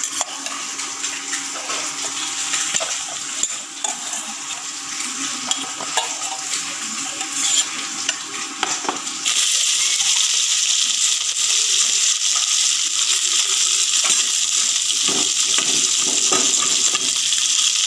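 A metal ladle clinks against a pot and bowl as boiled potatoes are lifted out of their water. About nine seconds in, a steady loud sizzle takes over: pieces of baim (spiny eel) fish frying in hot oil in a wok.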